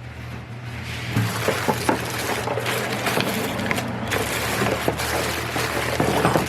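Small hard parts clattering and clicking as they are handled, a busy run of short rattles and ticks over a steady low hum.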